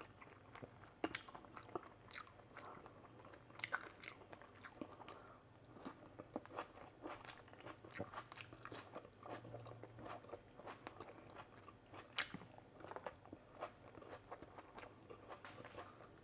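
Someone eating close to the microphone: biting and chewing food, with irregular small crunches and wet mouth clicks.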